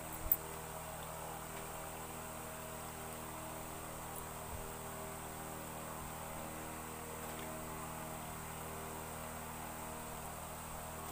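A steady low hum made of several fixed tones, with one sharp click just after the start.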